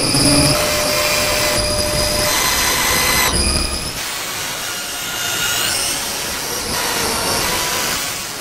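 Soundtrack drone of loud, dense noise with high whining tones that shift every second or so; the deep rumble underneath drops away about four seconds in.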